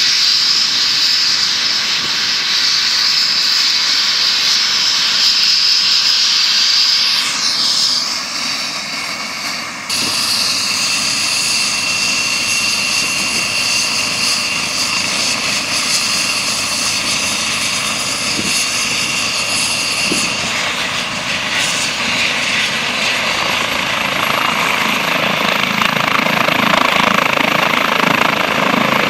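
Eurocopter EC135 helicopter on the ground with its turbines and rotor running before takeoff: a steady high turbine whine over the rotor noise. The whine shifts pitch about ten and twenty seconds in, and the rotor noise grows fuller and a little louder near the end as it powers up to lift off.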